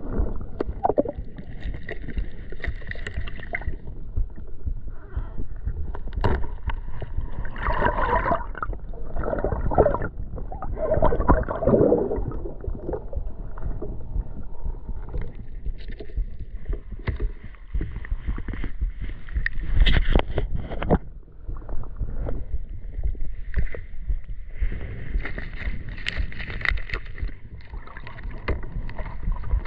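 Water sloshing and splashing around a person wading deep in a lake, with a steady low rumble and irregular louder splashes, the loudest about 8, 12 and 20 seconds in.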